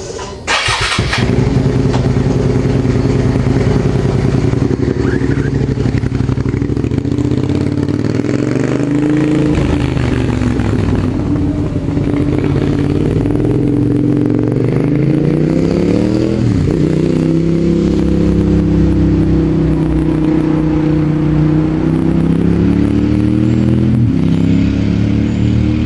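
Motorcycle engine running, coming in abruptly about a second in, its pitch rising and falling as the bike is ridden and the throttle opened and closed, with a sharp drop in pitch about two-thirds of the way through.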